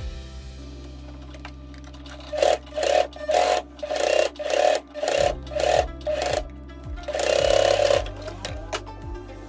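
Sewing machine stitching a seam in a string of short runs of about half a second each, then one longer run of about a second near the end, over background music.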